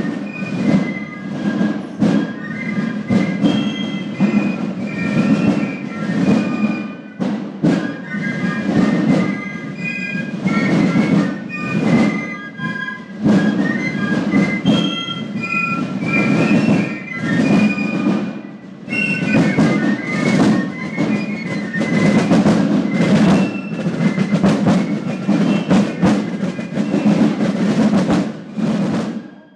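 Basel Fasnacht piccolos and Basel drums playing a march together: the piccolos carry a high melody over continuous drum rolls and strokes. The music cuts off suddenly at the end.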